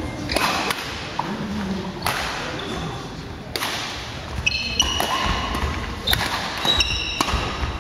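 Badminton rackets smacking the shuttlecock several times in a rally, each hit a sharp crack. Short squeaks of court shoes on the wooden floor come about halfway through and again near the end.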